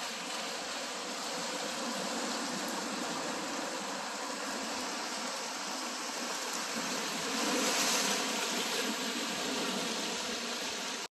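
Sea water washing and surging against rocky cliffs, a steady rushing that swells a little about three-quarters of the way through, then cuts off abruptly.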